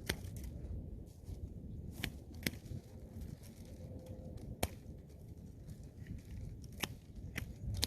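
Pruning shears snipping grapevine canes: about six sharp, separate snips spaced a second or two apart.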